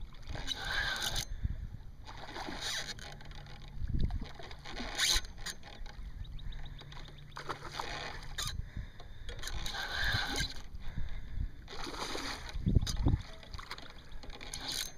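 A hooked redfish splashing and thrashing at the water's surface in irregular bursts, close beside a kayak, as it is fought on rod and reel.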